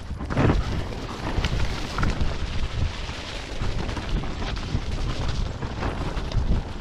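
Wind buffeting an action camera's microphone over the rumble of mountainboard wheels rolling down a wet dirt trail, with frequent small knocks and spatters, loudest about half a second in.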